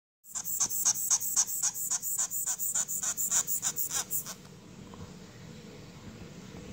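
A week-old sugar glider joey calling in a rapid run of short, shrill, high-pitched cries, about four a second, which stop abruptly about four seconds in.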